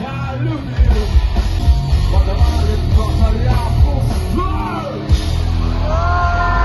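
Live rock band playing loudly, with shouted singing over guitar; bass and drums come in hard about a second in.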